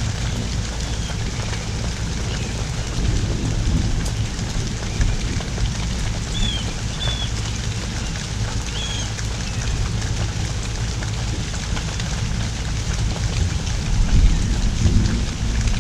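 Heavy rain from a hurricane's outer band pouring steadily, with a low rumble of thunder swelling near the end.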